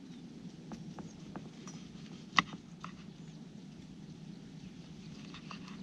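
Scattered light clicks and taps of hand work with limes, cut and handled for a dipping sauce, with one sharp click about two and a half seconds in.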